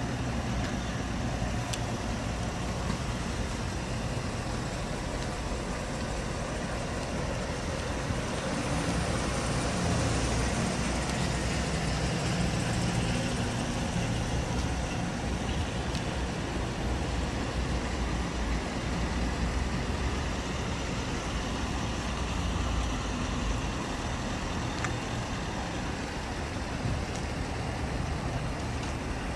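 Chevrolet Silverado Z71 pickup truck's engine idling steadily.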